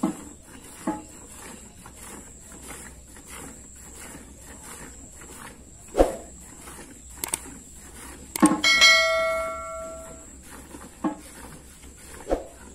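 A cow being milked by hand into a steel pail: faint, steady, rhythmic squirts of milk, a few short dull knocks, and about two-thirds of the way in a loud metallic clang that rings for over a second as the steel pail is knocked.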